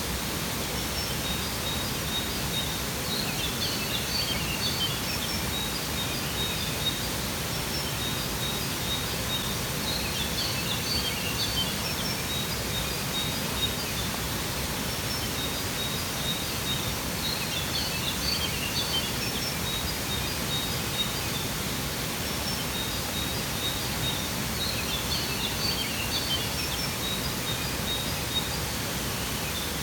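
Steady rush of falling water, with small birds chirping high in short bursts that come back about every seven seconds. A thin, high, pulsing trill runs between the bursts.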